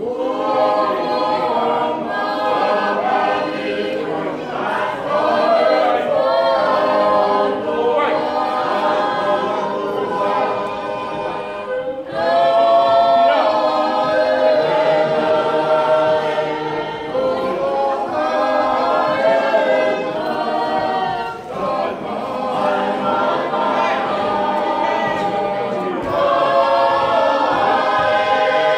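A group of voices singing a hymn together as a choir, with no instruments heard, in long held phrases with short breaks between them.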